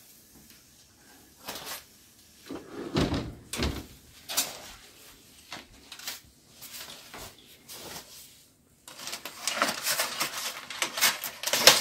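Scattered clunks and knocks as a foil-covered disposable aluminium tray is slid off the oven rack and set down on a stone counter. About nine seconds in, a dense, louder crinkling starts as the aluminium foil cover is pulled back from the tray.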